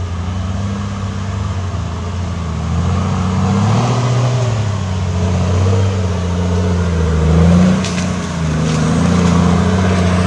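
4x4 off-road vehicle's engine running hard up a steep trail climb, revving up and down as it works over rough ground, with the revs rising around four seconds in and again near eight seconds.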